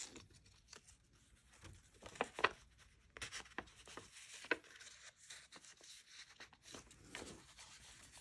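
Soft rustling and light taps of an old photograph and a card being handled and slid into a paper pocket in a handmade journal, with a couple of sharper clicks about two and a half and four and a half seconds in.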